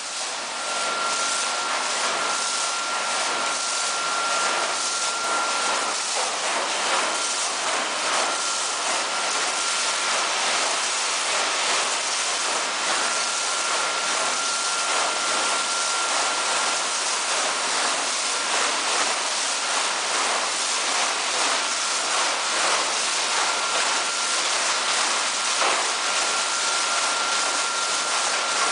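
TEPO-AUTO TP-1201 tunnel car wash running: water jets spraying and a rotating nylon brush scrubbing a car, a steady hissing rush. A thin high whine comes and goes over it several times.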